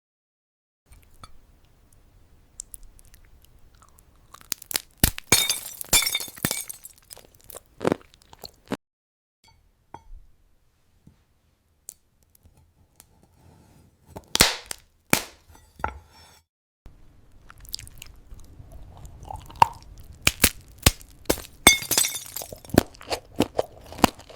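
Glass-like kiwi being bitten and chewed: sharp, brittle cracks and crunching in several bursts, with quiet gaps between.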